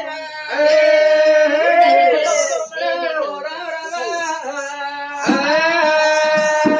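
A man singing a devotional folk song in oggu katha style, with a long held note about half a second in and another near the end.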